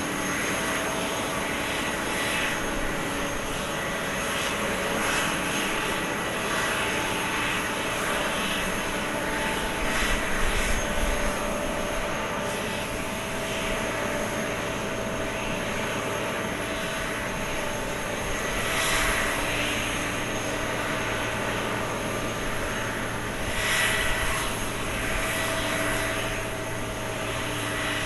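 Jet airliner engines running at low power with a steady whine over a rushing noise that swells briefly three times.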